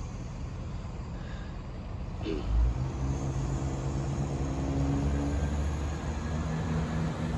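Diesel passenger train's engines throttling up as it pulls away from the station: a low drone with steady engine tones that starts and grows louder about two and a half seconds in.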